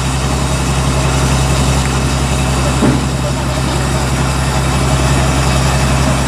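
Diesel engine of a rice combine harvester running steadily at an even low pitch.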